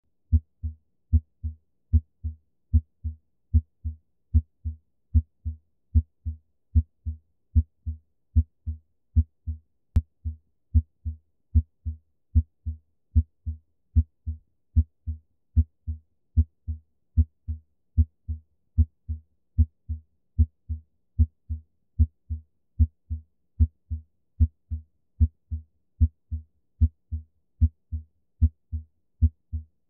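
Normal human heart sounds heard through a stethoscope bell: a steady lub-dub, each beat a louder first sound (S1) followed closely by a softer second sound (S2). The pairs repeat at about 75 a minute.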